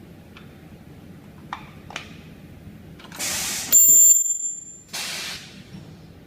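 Ultrasonic plastic welding machine running one weld cycle: a short burst of air hiss, then a loud, piercing high-pitched whine of several pitches for about a second as the horn vibrates the parts together, fading out, then another burst of air hiss as the press releases.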